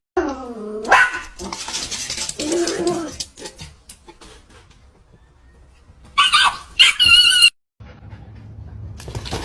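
A dog barking and yipping in short calls, with high-pitched squeals about six seconds in.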